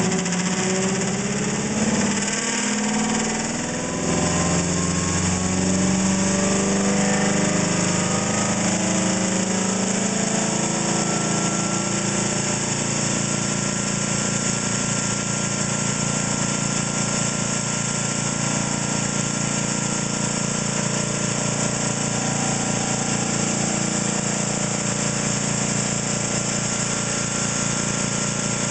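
Electric motor-generator test rig spinning up. Its whine rises in pitch for about the first ten seconds as the rotor comes up to about 1700 RPM, then runs steadily.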